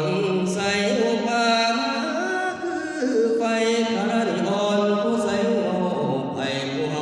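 Male voice chanting an Isan sung sermon (thet lae) in long, wavering, ornamented held notes, with short pauses between phrases about three seconds in and again near the end.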